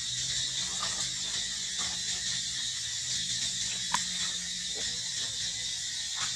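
Steady high-pitched insect buzz in outdoor ambience, broken by a few brief chirps or clicks, the sharpest about four seconds in.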